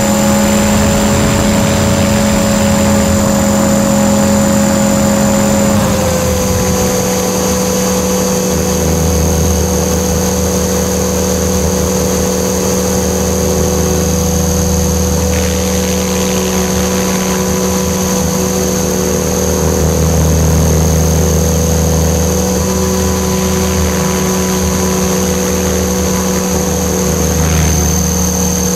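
Align T-REX 500 electric RC helicopter in fast forward flight, heard from on board: a steady motor and gear whine with rotor hum and wind noise. The whine drops slightly in pitch about six seconds in, and a low rumble joins a couple of seconds later.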